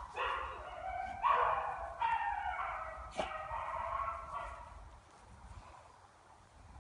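Dogs barking, with drawn-out, wavering cries. There is one sharp click about three seconds in, and the barking dies down over the last couple of seconds.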